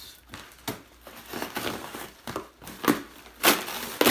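Small cardboard shipping box being torn open by hand: rustling and tearing of cardboard and packing, with a few sharp, loud rips about three seconds in.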